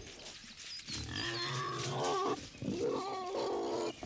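Wild boars squealing and grunting, with pitched calls that rise and fall from about a second in.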